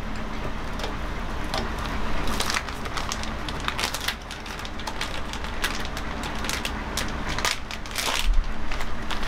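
An instant-noodle packet being opened and its wrapping and sachets handled: a run of sharp, irregular crinkling crackles that starts about two seconds in.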